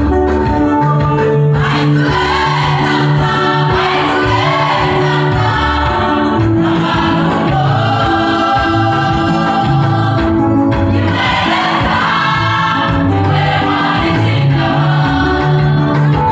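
Gospel music with a choir singing over bass and keyboard accompaniment.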